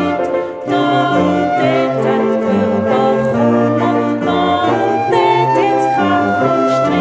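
A song played on instruments with singing, in a flowing melody of held notes.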